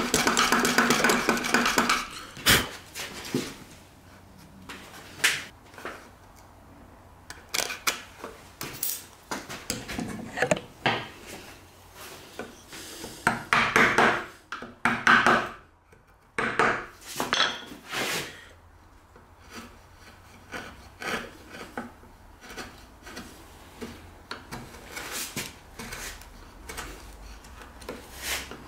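Bench chisel paring a notch in hardwood by hand: short, irregular scraping cuts with pauses between them, a cluster of louder strokes around the middle.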